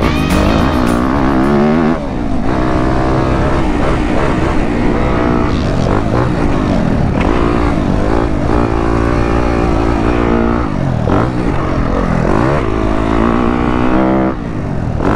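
A 2015 Yamaha YZ250F's 250 cc four-stroke single-cylinder engine, ridden hard around a motocross track: it revs up and falls off again and again, its pitch rising and dropping every second or two as the rider accelerates and backs off the throttle.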